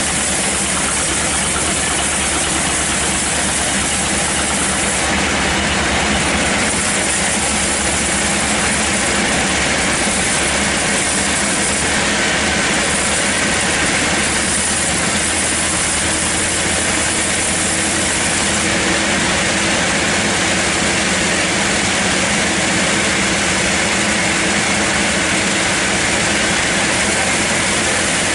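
Sawmill machinery running steadily and loudly: a continuous engine-driven drone with a wide rushing saw noise over it, unchanging throughout.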